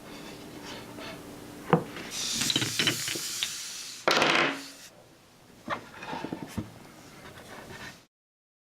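A wooden folding chessboard being handled: sharp wooden knocks and light taps, with stretches of wood rubbing and sliding, the loudest swish about four seconds in. The sound cuts off abruptly near the end.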